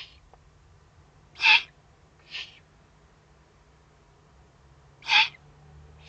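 Eurasian eagle-owl giving short, raspy hissing calls: a faint one at the start, then two loud ones, about a second and a half in and about five seconds in. The first loud call is followed within a second by a softer one.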